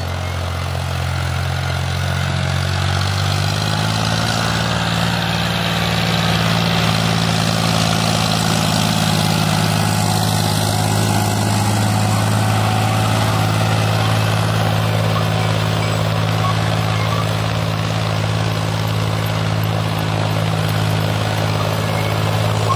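John Deere 5036 D tractor's three-cylinder diesel engine running steadily under load while pulling a disc harrow. The engine note rises slightly about four seconds in, then holds.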